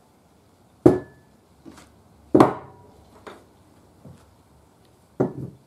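A series of sharp knocks and clatters of hard objects on wood, about a second apart, as the freshly glued wooden radio cabinet is handled. The loudest knock comes about two and a half seconds in and dies away briefly.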